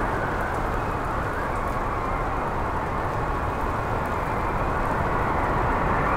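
Steady rainstorm sound effect: an even, muffled rush of heavy rain.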